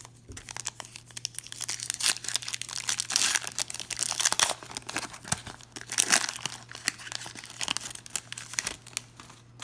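Foil wrapper of a trading-card pack being torn open and crinkled, a continuous crackling rustle with many sharp crinkles.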